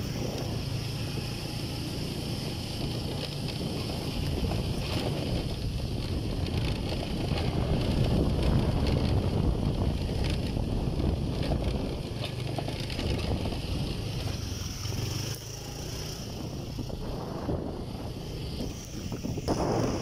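Wind rushing over the microphone of a small vehicle on the move, with the low, steady running of its engine underneath.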